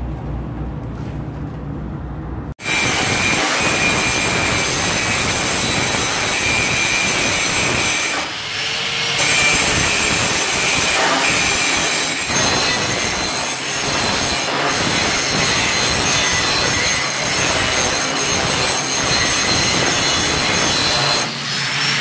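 Angle grinder grinding steel: a steady high whine over a loud gritty hiss that wavers as the disc is pressed on and eased off. It starts suddenly about two and a half seconds in, after a quieter low hum.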